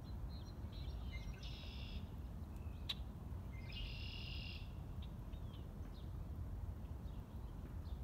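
A blackbird perched in a tree singing twice, about two seconds apart: each song is a short lead-in note followed by a high trill.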